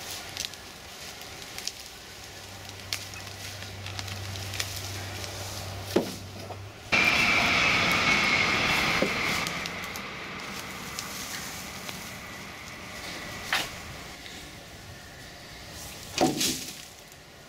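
Crackling and scraping of a long-handled garden tool dragged through twiggy leaf mulch and compost. About seven seconds in, a much louder steady rushing noise with a thin high whine sets in abruptly and slowly fades away.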